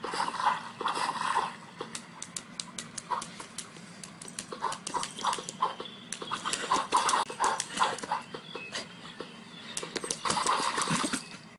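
A dog making short, repeated vocal sounds, mixed with many sharp clicks and taps.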